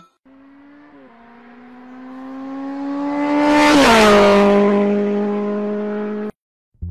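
A fast car passing by, dubbed in as a sound effect. The engine note swells in loudness, drops sharply in pitch as it passes about four seconds in, then holds steady until it cuts off abruptly.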